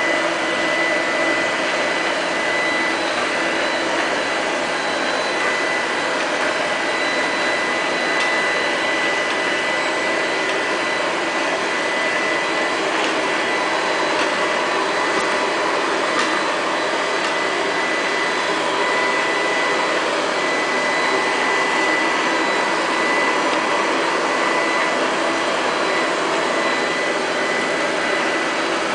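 Liectroux Q5 robot vacuum cleaner running: a steady fan hiss with a thin, high, even whine over it.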